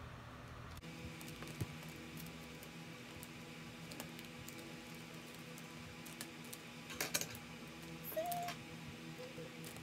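Clear adhesive tape being handled and pulled from its roll to reseal a paper envelope: scattered soft clicks and rustles, with a short crackly burst of tape pulling about seven seconds in. Faint steady background tones run underneath.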